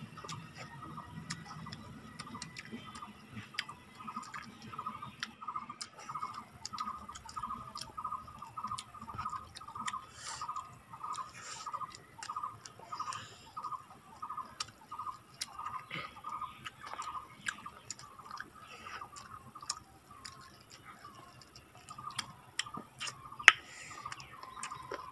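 Chewing, lip smacks and wet clicks of people eating rice and chicken fry with their fingers, with one sharp click near the end. Behind them, a short chirping note repeats about twice a second and stops a few seconds before the end.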